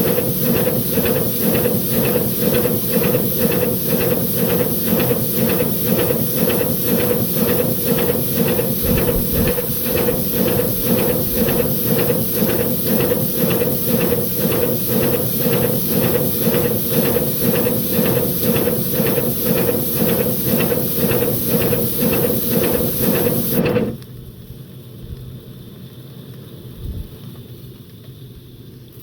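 5-inch gauge BR Class 9F model locomotive running on a rolling road: a fast, even rhythm of cylinder exhaust beats over a steady hiss. The sound cuts off suddenly near the end, leaving a much quieter background.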